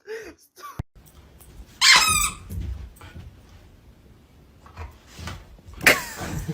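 An animal's quick run of high, falling squeaks, and a single sharper squeal with falling pitch near the end.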